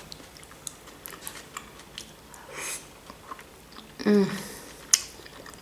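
Close-up eating sounds: a woman biting and chewing a boiled shrimp dumpling dipped in sour cream, with small wet mouth clicks, a short breath about two and a half seconds in, and a brief hummed "mm" of enjoyment about four seconds in followed by a sharp click.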